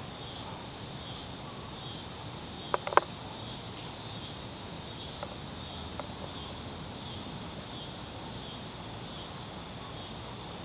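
Late-season cicadas singing in the trees, a steady high buzz with a faint regular pulsing, the thinned chorus of a season's end when most have stopped singing. Two sharp clicks about three seconds in.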